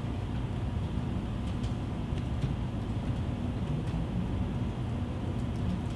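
Steady low hum of room noise, with a few faint clicks of typing on a laptop keyboard between about one and a half and four seconds in.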